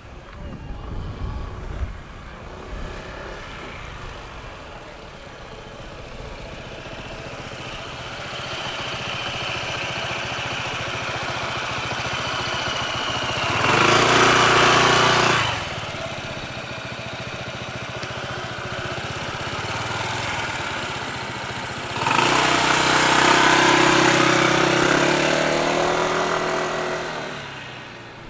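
Honda ADV 160 scooter engine running, swelling louder twice: briefly about halfway through, and again for several seconds from about two-thirds through, then fading near the end.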